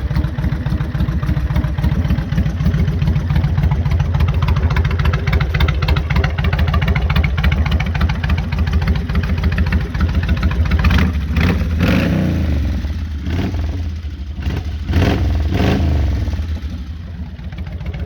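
Kawasaki Vulcan 1500 Classic's V-twin engine idling with a deep rumble, then revved: the pitch rises and falls about eleven seconds in, followed by a few short throttle blips.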